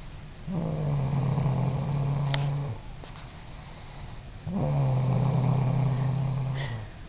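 Snoring in deep sleep: two long, steady, low-pitched snores of about two seconds each, the first starting about half a second in and the second about four and a half seconds in, with a quiet breath between.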